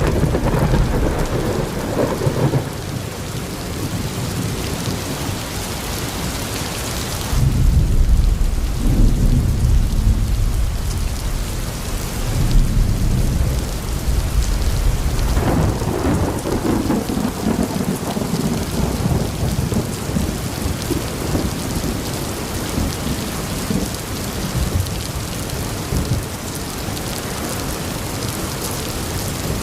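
Thunderstorm with heavy rain and wind: a steady hiss of rain, with long low rumbles swelling about a quarter of the way in and again near the middle.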